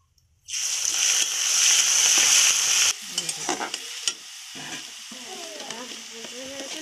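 Wet ginger-garlic-onion-chilli paste, kept in the freezer, dropped into hot oil in a karai: a loud sizzle starts about half a second in. After about three seconds it drops to a quieter, steadier frying sizzle while a metal spatula stirs the paste.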